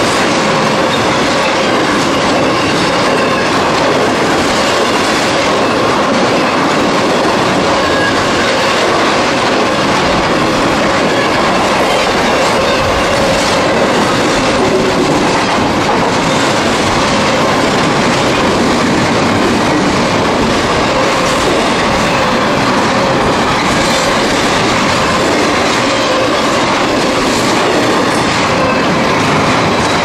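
Double-stack intermodal freight train rolling past at close range: loud, steady noise of steel wheels on the rails as the container cars go by.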